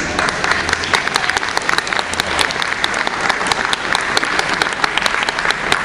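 Audience applauding: many hands clapping, starting suddenly and keeping up steadily.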